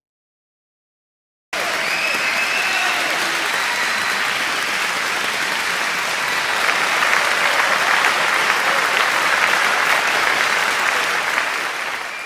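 Crowd applause, starting suddenly after about a second and a half of silence and then going on steadily.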